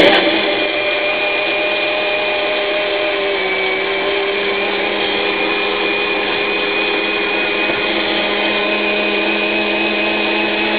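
Countertop electric blender switched on and running steadily, its motor starting abruptly and holding an even whirring hum throughout.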